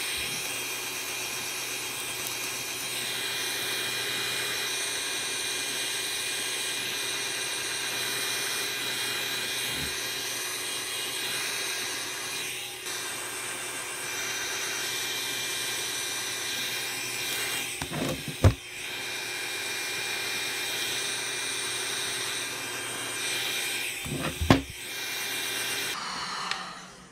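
Electric heat gun blowing steadily with a constant fan whine as it shrinks heat-shrink wrap onto a lithium battery pack. There are two loud knocks a few seconds apart in the last third, and the gun cuts off shortly before the end.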